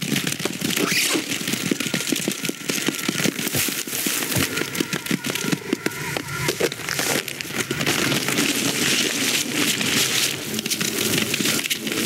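Dense, irregular crackling and clicking of many small sharp sounds, running without pause.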